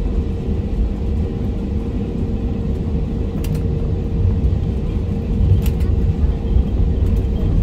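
Airbus A320neo taxiing, heard from inside the cabin: a steady low rumble from the wheels rolling on the taxiway, with a steady hum from the idling engines. Two brief knocks come about three and a half and five and a half seconds in.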